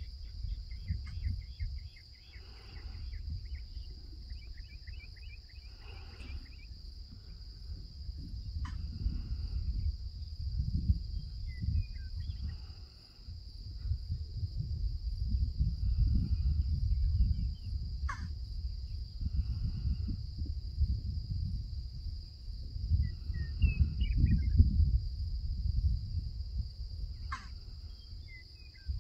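Steady high chorus of crickets, under a low rumble that swells and fades, like wind on the microphone. A few short chirps and three sharp clicks come through.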